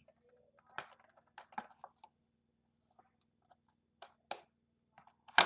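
Hands picking at sticky tape on a cardboard toy box: scattered crackles and taps, with a sharper, louder crackle near the end.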